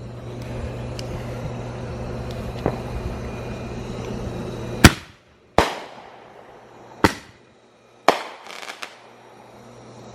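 Firework explosions: four sharp bangs about a second apart in the second half, the last followed by a brief crackle. A steady low hum is heard before the first bang.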